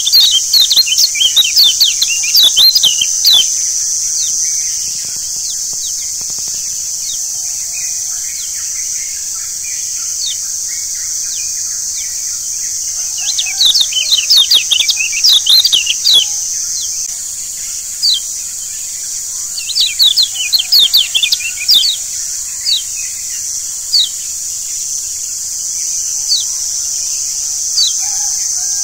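Yellow white-eyes (kecial kuning) chirping: rapid flurries of short, falling high notes at the start, about halfway and again about two-thirds through, with scattered single chirps between, over a steady high hiss.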